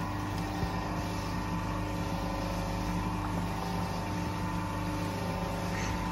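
Large bakery stand mixer's electric motor running steadily, its beater churning eggs as sugar is poured into the bowl.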